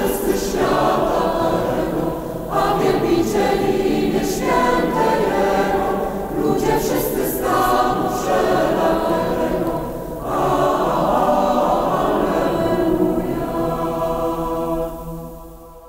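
Mixed choir of men and women singing a cappella, in phrases with short breaks between them, fading out near the end.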